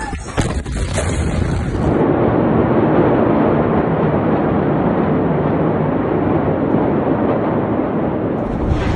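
A few sharp cracks in the first second, then a dense, loud rumbling roar from a massive blast, as recorded on a phone's microphone.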